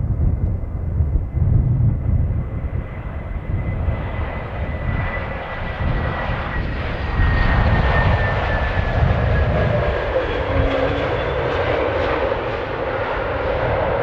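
Airbus A321neo airliner landing and passing close by: a high engine whine that slowly falls in pitch over rising jet noise, loudest from about halfway through. Gusty wind rumbles on the microphone.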